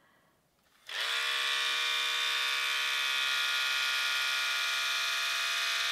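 Cordless electric split end trimmer's small motor starting up about a second in, then running with a steady, even hum as it is drawn slowly down a section of hair.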